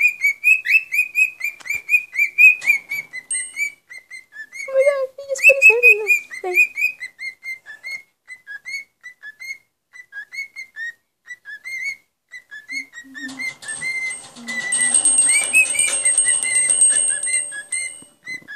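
Cockatiel whistling: a long run of short, clipped whistled notes, two or three a second. A noisy hiss runs underneath for several seconds in the second half.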